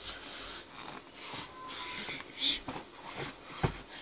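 A child's short, breathy puffs of breath, about four of them, as he throws punches, with one sharp thump near the end.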